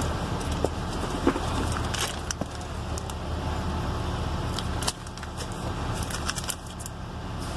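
Light metallic clicks and clinks, as of a 1/2-inch drill bit being handled and fitted into a cordless drill, over a steady low hum.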